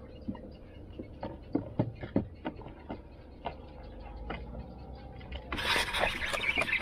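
Light, irregular clicks and knocks from handling a baitcasting rod and reel in a small boat. About five and a half seconds in comes a loud rustle as a sleeve brushes across the camera while the rod is swung to cast.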